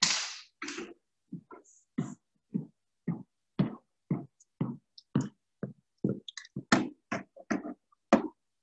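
Footsteps on a hardwood gym floor, about two steps a second, with a short rushing hiss at the start.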